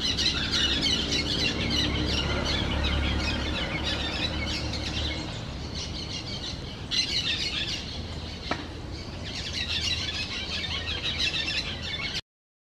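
Orange-chinned parakeets chattering in a steady stream of rapid, high chirps and squeals. The calls cut off suddenly near the end.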